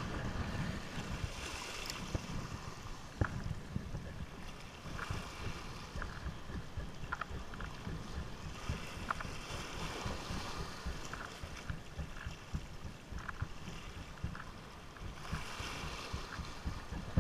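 Wind buffeting the microphone over sea water lapping at the shore, with scattered faint clicks.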